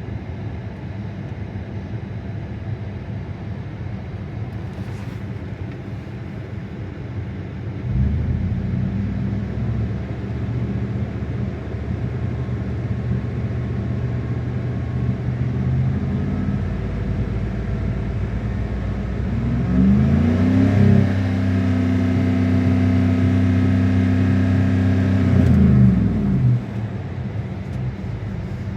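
Car engine with a cylinder-2 misfire, the subject of the video, idling, then brought up to a raised speed about eight seconds in. About twenty seconds in it is revved higher, held, and drops back to idle near the end.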